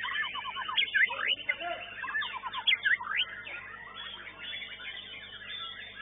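White-rumped shamas singing: varied whistles, fast trills and rising and falling glides, busiest between about one and three and a half seconds in.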